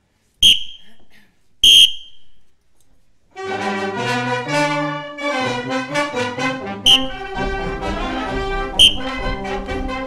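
Two short, shrill whistle blasts, then a brass band of tuba, saxophones, trumpets and baritone horns starts playing about three seconds in; two more short blasts sound over the music later.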